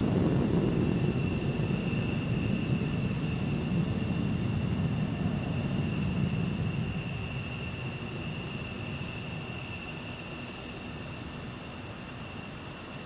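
Jet engines running on a flight line: a steady high whine, typical of a jet idling, under a loud low rumble that comes in abruptly and fades slowly over the second half.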